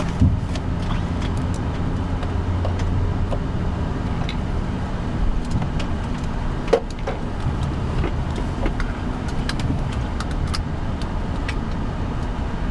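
Steady low drone of an Airbus A330 flight deck during pushback, from the APU and air conditioning, with faint clicks and two short knocks, one right at the start and one about seven seconds in.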